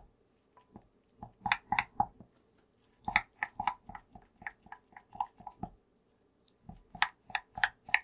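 White spatula scraping and knocking against a glass bowl while stirring melted milk chocolate, in quick strokes of about four a second, in three runs with short pauses between.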